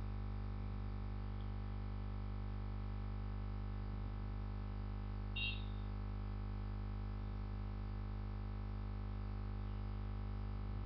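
Steady electrical hum with a stack of buzzing overtones, the background noise of the recording setup. A brief high chirp sounds once, about five and a half seconds in.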